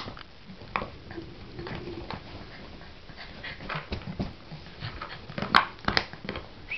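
Chow Chow puppy chewing and nosing a plastic bottle: irregular crackling and clicking of the plastic, with two louder cracks near the end.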